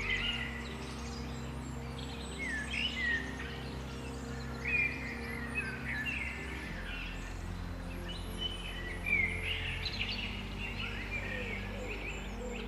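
Songbirds chirping and whistling in short repeated phrases, over soft ambient music of sustained low chords that shift a few times.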